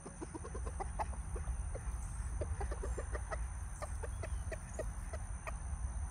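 Flock of chickens clucking in short, rapid notes, several a second, as they peck at corn.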